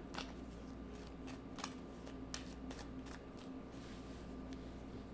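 A deck of tarot cards being shuffled by hand: faint, soft card clicks at irregular intervals over a steady low hum.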